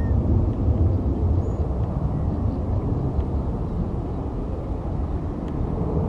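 Steady low rumble of outdoor background noise, like distant traffic or aircraft. A brief rising bird chirp sounds right at the start, and a few faint high chirps follow.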